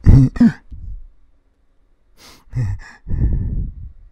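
A man's breathy vocal sounds: two sharp huffs or sighs at the start, a pause, then more short breaths and a longer rough exhalation near the end.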